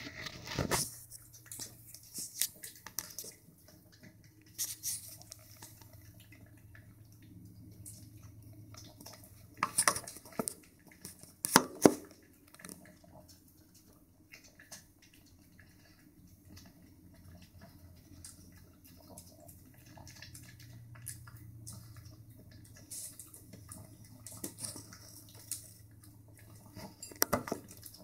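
Boston terrier puppy eating from her food bowl: irregular clicks and clinks of food and teeth against the bowl, coming in scattered clusters, the loudest a little before halfway.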